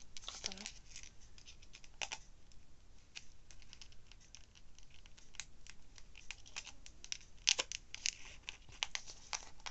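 Small packaging crinkling and clicking in the hands as it is worked at and pried to get it open, with one louder sharp click about three-quarters of the way through.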